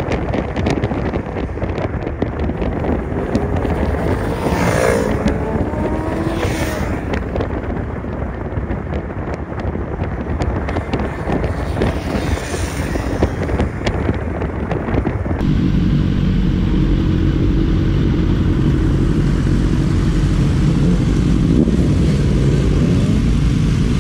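Sport motorcycles riding past at speed, their engine notes rising and falling as they go by. About two-thirds of the way through, a cut brings a steadier, deeper engine drone heard from on board a riding motorcycle.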